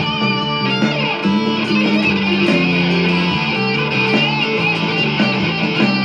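Electric guitar playing sustained lead notes with wavering vibrato and a slide about a second in, over a band backing track with bass.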